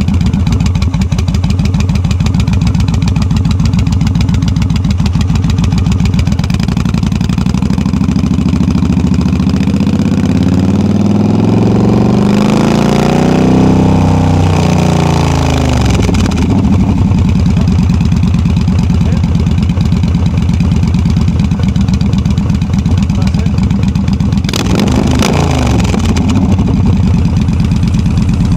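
Yamaha V Star 1300 V-twin running through loud drag pipes while the bike rides along at a steady pace. Another car's noise swells and fades as it passes close by about halfway through.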